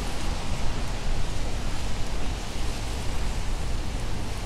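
Steady hiss of a wet city street in the rain, with a low rumble of traffic underneath.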